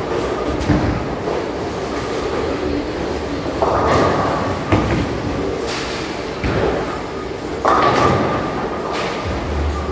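Bowling alley lanes in play: bowling balls rolling with a steady rumble, and pins crashing several times, the loudest near the middle and about three-quarters of the way in.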